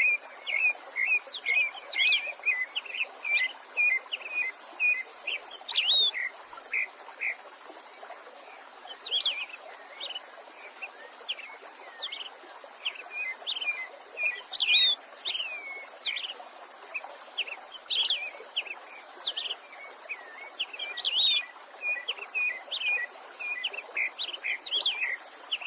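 Songbird singing in long, fast phrases of short high chirping notes, pausing briefly about a third of the way in, over a steady hiss of running stream water.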